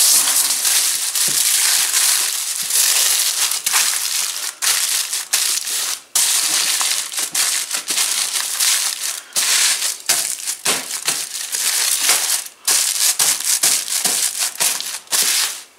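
Aluminium foil crinkling and crunching as hands fold, crush and roll it tightly around potatoes, almost without a break, with a few short pauses.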